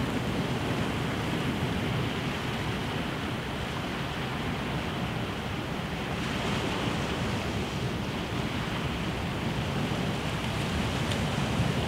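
Sea surf washing steadily onto a rocky shore, a continuous rushing that swells a little about halfway through, with some wind on the microphone.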